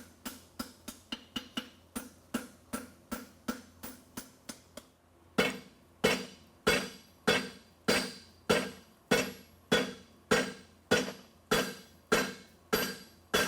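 Farrier's hammer striking a steel horseshoe on the anvil, each blow ringing. Quick, light blows come about four a second, then after a short break about five seconds in, heavier blows land about every 0.6 seconds as he works the shoe's other branch.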